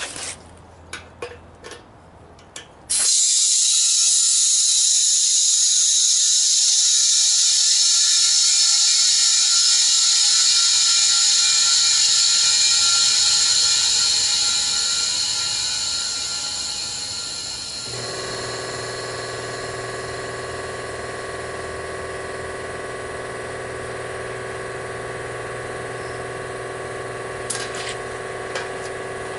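A few clicks and clanks, then compressed air hissing loudly and steadily from about three seconds in, the sound of a homemade blast tank being filled with air. The hiss eases somewhat, and a little past halfway a steady hum with several held tones joins it.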